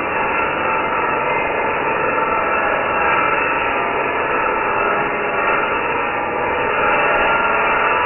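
Angle grinder grinding steel, running steadily with a whining tone.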